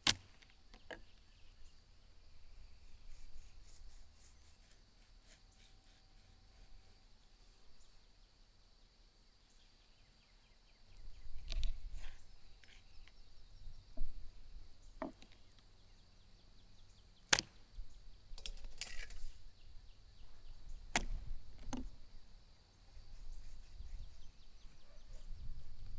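Knife cutting a raw beef tongue on a wooden cutting board: scattered sharp knocks and taps of the blade and meat against the board, a few seconds apart.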